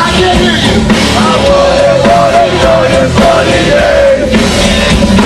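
Live rock band playing loud through a concert PA, with a singer's voice over drums and guitars, heard from within the crowd.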